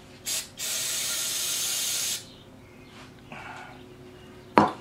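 Compressed-air blow gun: a short puff, then a steady hiss of air for about a second and a half. A single sharp knock near the end, the loudest sound.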